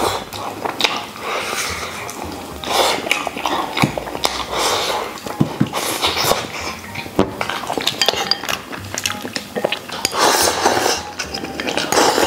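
Close-up mukbang eating sounds: chewing and loud sucking on pieces of braised pig tail, with sharp clicks of chopsticks against a porcelain bowl. Near the end comes a slurp from the bowl.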